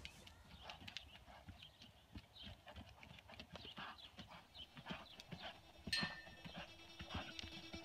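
Faint hoofbeats of a ridden horse trotting and cantering on arena sand, soft knocks about three to four a second. There is a brief louder sound about six seconds in.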